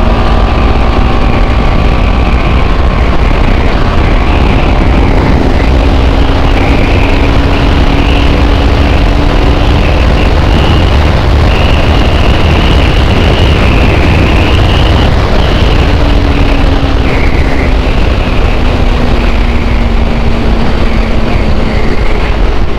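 Motorcycle riding at highway speed with heavy wind noise on the microphone. Under it the TVS Apache RR 310's 312 cc single-cylinder engine pulls hard from about 105 toward 150 km/h, its note climbing for several seconds and later easing back down.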